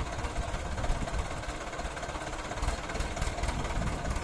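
Mahindra Arjun Ultra 555 DI tractor's four-cylinder diesel engine running steadily at low revs as the tractor moves slowly.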